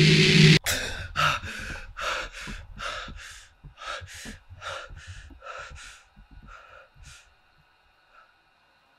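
A loud rushing drone cuts off abruptly under a second in. Then a person breathes hard and fast in quick, noisy gasps, about two or three a second, growing fainter until they stop about seven seconds in.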